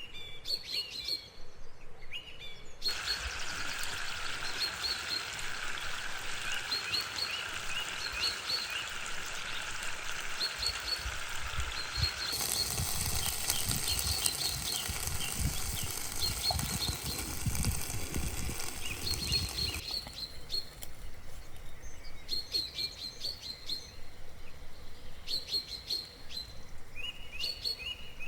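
Small songbirds chirping, repeated short high chirps several times a second. From about three seconds in until about twenty seconds in, a steady hiss sits under the birdsong, growing fuller with some low rumble about halfway through, then cuts out, leaving the chirping alone.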